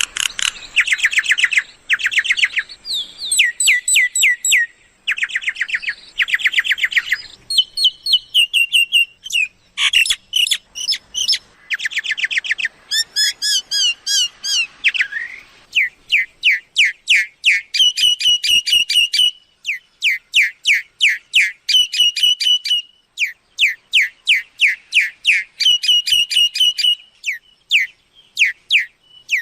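Myna calling: rapid runs of sharp, down-slurred whistled chirps in bursts of a second or two, repeated with short pauses, the kind of call used to lure mynas to a decoy.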